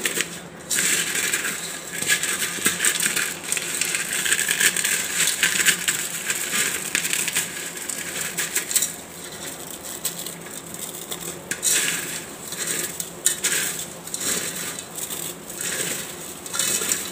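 Crisp fried sev (gram-flour noodles) crackling and crunching as a hand crumbles it in a metal bowl: a dense run of small snaps and rustles, with pieces pattering against the metal.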